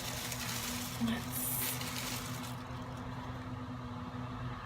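Steady low hum inside a car, with a hissy rustle over it that stops about two and a half seconds in and a small click about a second in.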